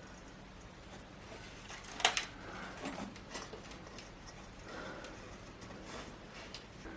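Light handling noises of coiled wire heating elements and ceramic tiles in a small furnace: one sharp click about two seconds in, then scattered small clicks and brief scrapes.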